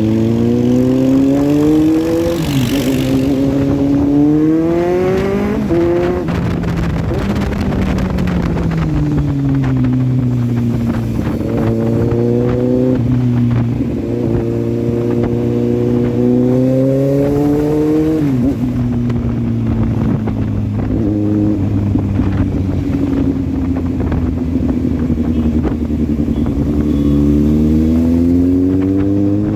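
Inline-four motorcycle engine heard onboard, its revs climbing and then dropping sharply a few times as it shifts or backs off, with steadier cruising stretches between, over constant wind noise.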